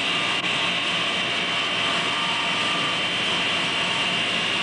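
Motor-generator set, a 3/4 hp induction motor belt-driving a 2900-watt generator, running steadily on mains AC power, a constant hum with a high-pitched whine.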